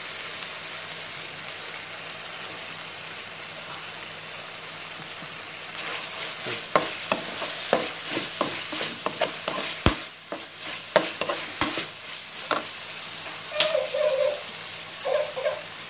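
Squid rings and onion sizzling in a wok coated with black sauce, a steady frying hiss. From about six seconds in a metal spoon stirs them, scraping and clinking against the pan many times, with a few sharp knocks and brief squeaky scrapes near the end.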